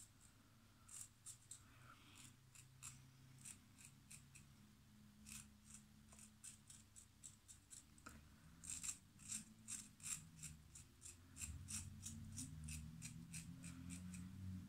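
GEM 1912 single-edge safety razor scraping through lathered stubble in short, quiet strokes, coming in quick runs of about three a second, busiest in the second half.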